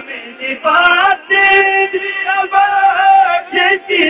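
A man singing a naat, drawing out long held notes with a wavering pitch after a brief pause at the start.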